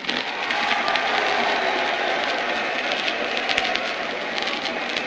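Large convention crowd applauding and cheering, a steady dense wash of noise on an old 1940s recording.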